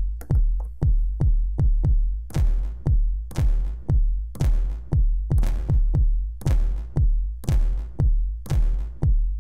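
Electronic drum-machine beat from an Ableton Live drum rack, with a kick about twice a second. About two seconds in, a snare joins on every other kick, played in by finger on the pads of a Native Instruments Maschine Jam.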